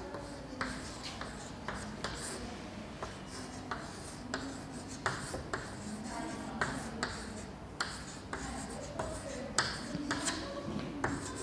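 Chalk writing on a blackboard: irregular taps and short scratching strokes as letters are written out.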